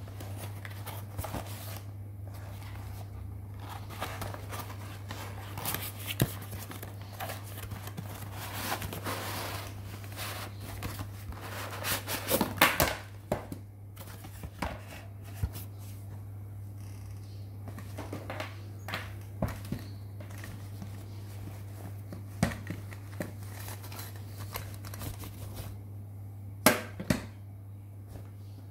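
Unboxing handling noise: plastic packaging crinkling and rustling, with scattered clicks and knocks. The loudest flurries come about twelve seconds in and near the end, over a steady low hum.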